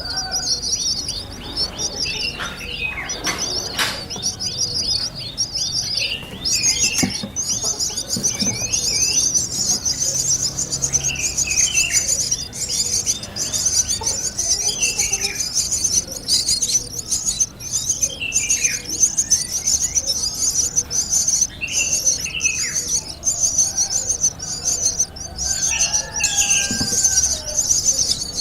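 Birds calling: a continuous high-pitched chittering, overlaid with many short calls that slide downward in pitch.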